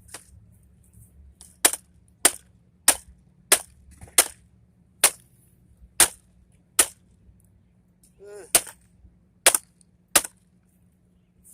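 A hammer striking a vacuum cleaner's plastic housing, about eleven sharp blows at a little under one a second, smashing it open to reach the motor.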